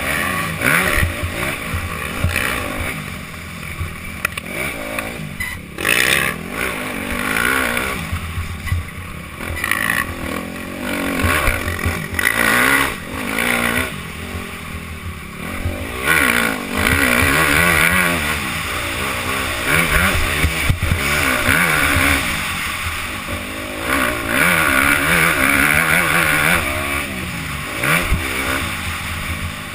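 Motocross bike engine, heard from a helmet-mounted camera, revving up and down over and over as the rider opens and closes the throttle and shifts through the gears while riding the dirt track.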